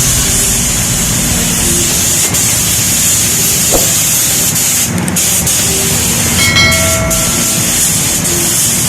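Steady, loud hiss of compressed air spraying, typical of body-shop air tools.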